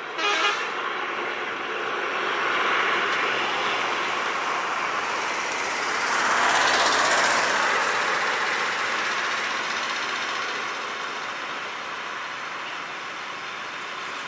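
Road traffic driving past: engine and tyre noise swelling and fading, loudest as a vehicle passes close about seven seconds in. A short loud burst comes right at the start.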